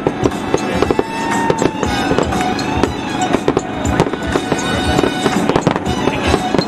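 Aerial fireworks shells bursting in a rapid, overlapping barrage of bangs, with a few whistles gliding in pitch. Music plays underneath.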